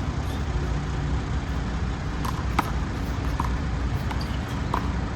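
A small rubber handball smacking against the wall, hands and court about four times, sharp and short, the loudest about two and a half seconds in, over a steady low outdoor rumble.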